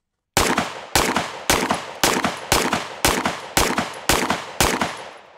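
A 9mm pistol fired rapidly in a string of about nine shots, roughly two a second, each with a short ringing echo. It is a continuous string fired to test whether a tightened support-hand grip holds through recoil.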